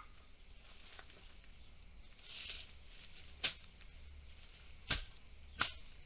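A brief rustle, then three sharp clicks or knocks spaced a second or so apart, over a faint outdoor background.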